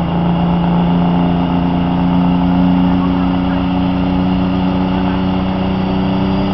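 Semi truck's diesel engine running hard under heavy load while pulling a weighted sled, a steady drone whose pitch creeps slowly upward.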